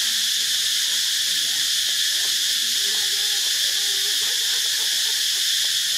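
Steady, unbroken chorus of insects in tropical forest, a dense high drone that holds constant throughout. Faint wavering low tones sound underneath it, most clearly a few seconds in.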